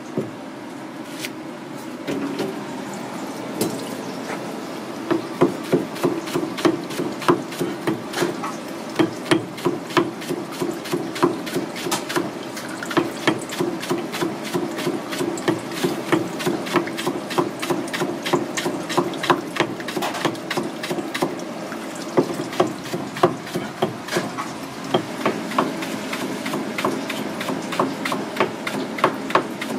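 Kitchen knife chopping rapidly on a plastic cutting board while slicing vegetables thin, a quick string of sharp knocks that starts a few seconds in and goes on steadily.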